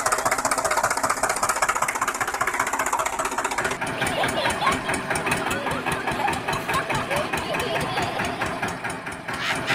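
Tractor engine running with a steady, fast knocking beat. About four seconds in it switches abruptly to a different engine sound with a fuller, deeper beat.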